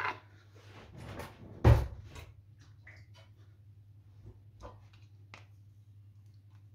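A plastic tub being handled on a kitchen countertop: one loud knock about two seconds in, then a few faint clicks and taps, over a steady low hum.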